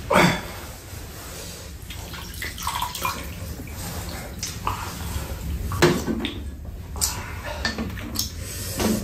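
Eating sounds: slurping and sipping of soup and a drink, with spoons knocking against bowls and a mug now and then. A short louder sound comes right at the start.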